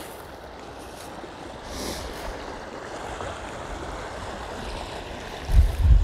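Water running steadily, slowly growing louder, then wind buffeting the microphone in low gusts from about five and a half seconds in.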